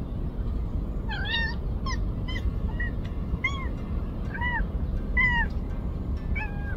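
A cat mewing in a run of about eight short, high-pitched mews, one every half second to a second, over a steady low background rumble.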